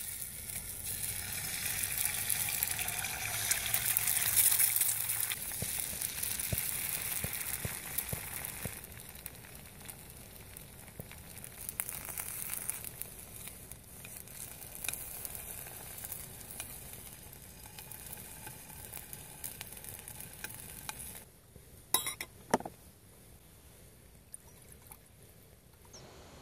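Eggs frying in oil in a non-stick frying pan: a loud sizzle as the eggs go into the hot oil, settling to a softer steady sizzle. Near the end the sizzle drops away and a couple of sharp clicks sound.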